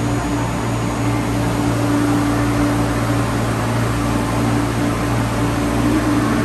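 MTR East Rail Line electric multiple unit standing at the platform, its air-conditioning and auxiliary equipment giving a steady hum with a low and a higher tone held under a constant rush.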